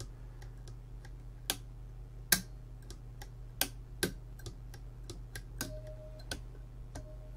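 Lever switch on a Grass Polygraph module being flicked back and forth, latching one way and momentary the other: about a dozen sharp, irregularly spaced clicks of the switch action.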